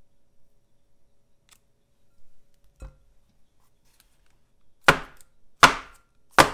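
A mould of steamed-cake batter dropped three times onto a wooden table, three sharp knocks about three-quarters of a second apart, each with a short ring, after a fainter knock as it is set down. The drops knock large air bubbles out of the batter before steaming.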